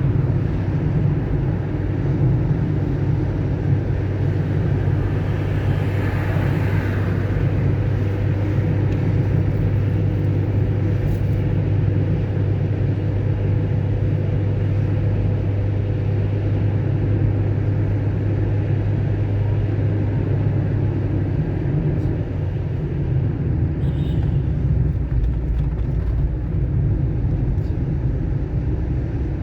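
Car driving on a rain-wet road: steady engine hum and tyre road noise. The low engine note drops in pitch about two-thirds of the way through.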